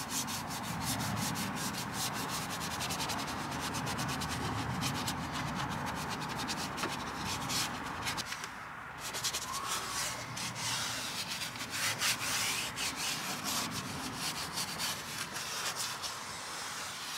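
Bristle detailing brush scrubbing wet plastic and rubber footwell pedals and door-sill trim: a fast, continuous bristly scratching of quick back-and-forth strokes, easing briefly about eight seconds in before carrying on.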